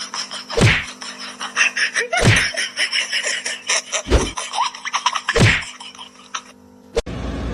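Four heavy thumps, one every one to two seconds, over rapid clicking and a steady hum; the sound cuts off abruptly near the end.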